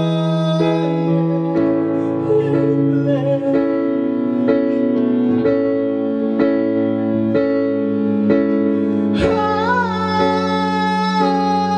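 Live band music: piano-voiced chords on a Kurzweil PC88 stage keyboard struck about once a second over sustained low bass notes, with a male voice singing without words, rising to a strong, wavering held note about nine seconds in.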